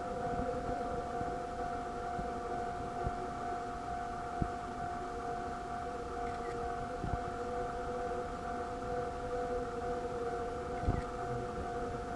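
Japanese railway level-crossing alarm sounding steadily on two tones, warning of an approaching train. A couple of brief knocks.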